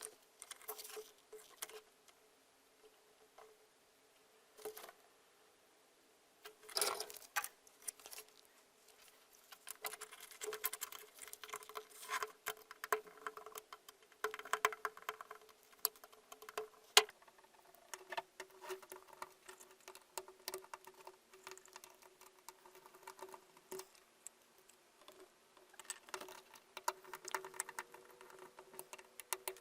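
Irregular small clicks, taps and scraping of hard parts being handled, with denser bursts of scratching a third and a half of the way in and near the end, over a faint steady hum.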